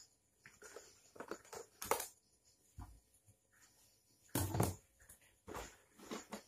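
Irregular small clicks, taps and knocks of hands and tools working on an opened LED TV's circuit boards and metal chassis, the loudest a quick pair of knocks about four and a half seconds in.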